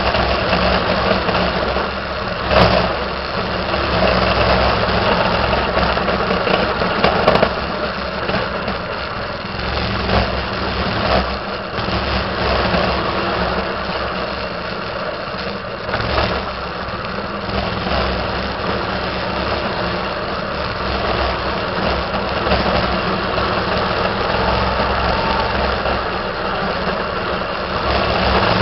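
Minibike's small engine running steadily while the bike rides over rough ground, with a few short knocks along the way.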